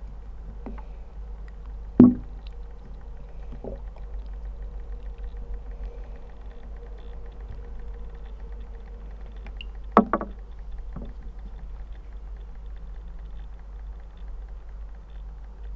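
Hydrophone recording of a small plastic travel-size toothpaste tube being squeezed and handled underwater in a glass tank: a steady low hum with faint clicks and creaks, and two sharp knocks, about two seconds in and again about ten seconds in.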